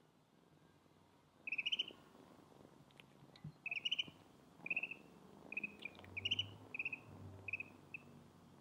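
Ducklings peeping: a run of about eight short, high, trilling peeps, starting about a second and a half in and coming every half second to a second.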